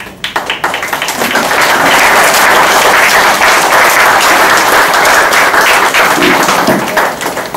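Audience applauding: a few scattered claps that swell within the first second or two into full, steady applause, which then thins out and dies away near the end.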